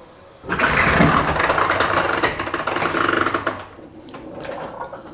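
Daytona steel floor jack being worked and rolled on a concrete floor: a loud metallic rattle and rumble starting about half a second in and lasting about three seconds, then dying down to a few faint knocks.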